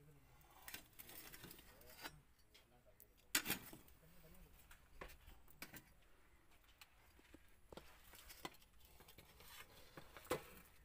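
Faint, scattered clicks and knocks, the sharpest a little over three seconds in and another shortly before the end.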